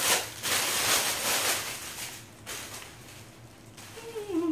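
Thin clear plastic garment bag crinkling and rustling as it is torn open and handled, loudest in the first second and a half and then fading. Near the end there is a brief hummed note.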